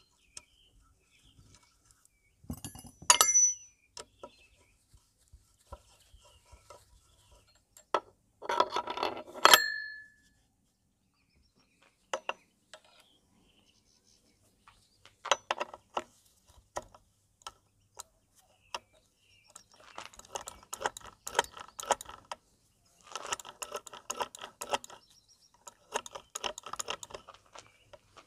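Metal parts and hand tools clinking and clanking against the aluminium crankcase of a Honda Tact AB07 scooter engine while its kickstart mechanism is assembled. Two loud, sharp metallic clanks come about three and nine seconds in, and bursts of rapid clicking fill the last third.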